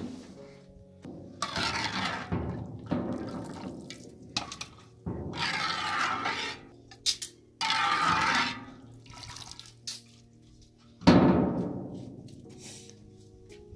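Hot meat broth being scooped with a ladle from a large metal cooking pot and poured into a bowl: a string of separate liquid splashes and pours, the loudest near the end, starting suddenly and fading away.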